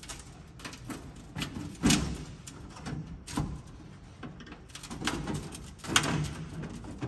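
Irregular metal knocks, clicks and rattles from a perforated aluminium grille mesh being pressed and shifted into place by hand, with two louder knocks, about two seconds in and about six seconds in.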